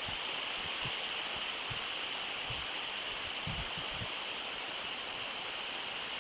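Steady outdoor background hiss from an outdoor animal live-cam microphone, strongest in a high band, with scattered faint low thumps.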